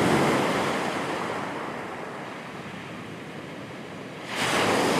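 Sea waves breaking on a beach. One surge of surf is loudest at the start and slowly washes away, and another wave breaks about four seconds in.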